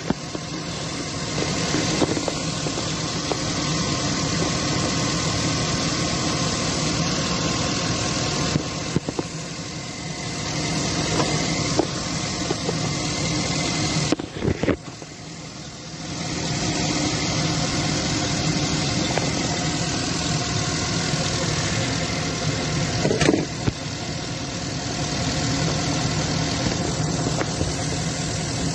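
An engine running steadily at idle, with a short drop in level about halfway through.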